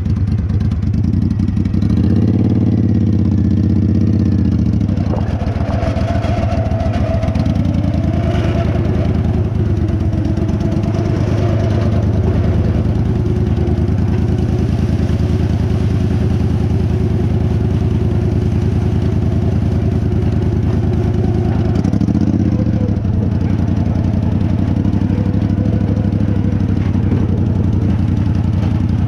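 Riding lawnmower engine running hard as the mower is driven fast. Its pitch dips and comes back up twice: about two to five seconds in, and briefly about three-quarters of the way through.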